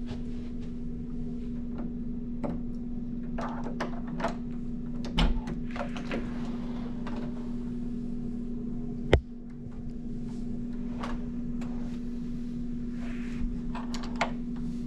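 Steady low hum with scattered light knocks and clicks from a wooden hotel room door being handled, including one sharp click about nine seconds in.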